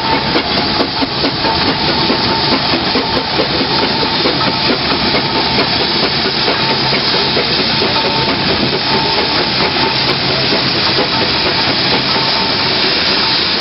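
Several steam traction engines hauling a 100-ton load, giving a steady hiss of steam over a dense run of rapid, overlapping exhaust beats.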